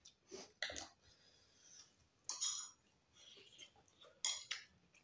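Mealtime eating sounds: chewing and mouth noises, with about half a dozen short, light clinks and taps of plates and spoons, the loudest about two and a half and four and a half seconds in.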